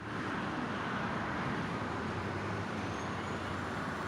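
Steady road traffic noise: the even rush of passing vehicles, with no horn sounding.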